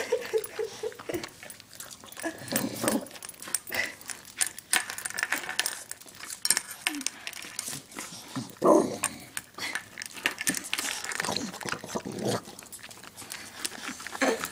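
Dog eating from a metal bowl, chewing and crunching with many quick clicks, and growling in a few short bursts about three, nine and twelve seconds in.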